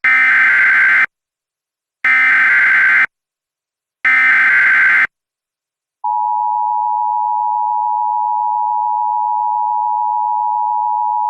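Emergency Alert System SAME header: three one-second bursts of digital data tones with short silent gaps, encoding a tornado warning. About six seconds in, the steady two-tone EAS attention signal starts and keeps going.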